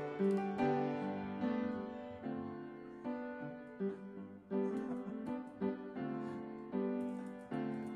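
Instrumental background music: a melody of sharply struck notes, each fading away before the next.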